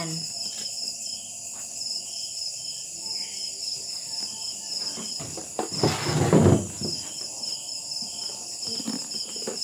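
A night chorus of crickets: steady, evenly pulsing high-pitched chirping. A brief rustling noise about six seconds in is the loudest moment.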